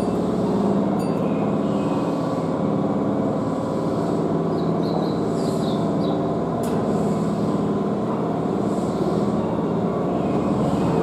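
Keihan electric commuter train at the station platform, giving off a steady hum made of several held tones, with a couple of faint clicks.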